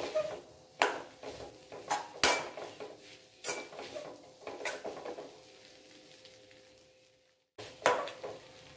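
Steel ladle scraping and knocking against a kadai as rice is stir-fried and tossed, about one clack a second. The strokes thin out after about five seconds, and one more clack comes near the end.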